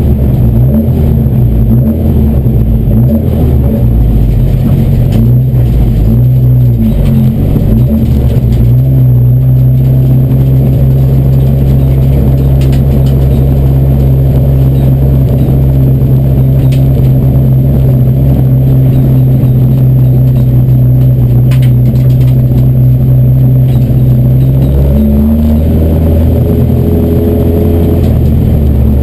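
Race car engine heard from inside its stripped, roll-caged cabin. The engine note shifts for the first several seconds, then holds one steady pitch for about fifteen seconds before changing again near the end.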